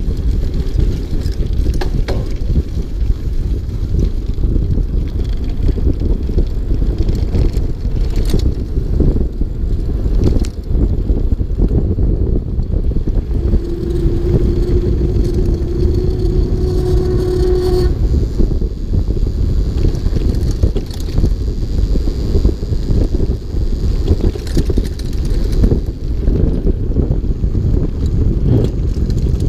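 Mountain bike ridden on a dirt trail: wind buffeting the microphone over the rumble of the tyres, with frequent knocks and rattles from bumps. Midway a steady pitched tone sounds for about four seconds.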